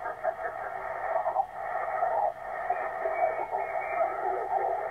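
Yaesu FT-450D transceiver receiving an 80 m lower-sideband voice signal over band noise. The voice comes through garbled as the tuning knob is turned across the frequency. The sound is thin and narrow, cut off above the radio's voice band.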